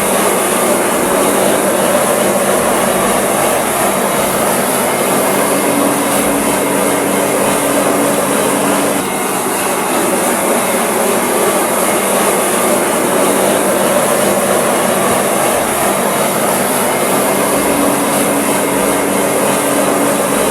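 Loud, steady mechanical noise from construction machinery on a concrete pour, with a brief break about nine seconds in.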